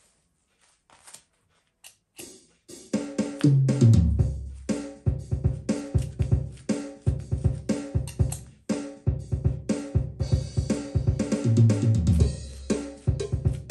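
Boss Dr. Rhythm DR-3 drum machine playing a programmed drum pattern with a bass line under it, starting about two and a half seconds in after a few faint clicks.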